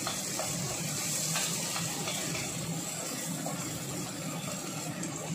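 Steady hum and hiss from a gas stove with a wok cooking on it, the range hood running overhead, with a few light scrapes of a wooden spatula stirring in the wok.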